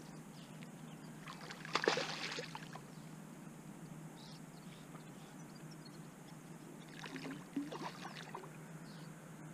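A hooked fish fighting at the surface of a pond, splashing twice: once about two seconds in and again around seven to eight seconds in.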